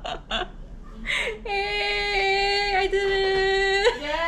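A woman's voice holding one long sung note for about two and a half seconds, after a second of short laughing sounds.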